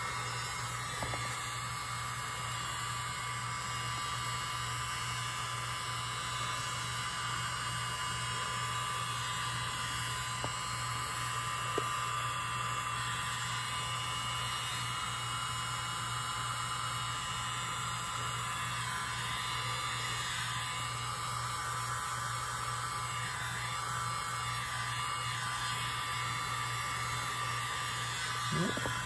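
Small handheld electric air blower running steadily, a constant hum with a higher tone over it, as it blows wet acrylic paint outward into a bloom.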